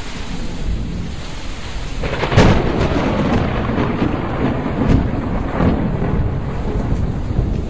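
Thunderstorm sound effect: steady rain hiss with a loud crack of thunder about two seconds in and two smaller claps later.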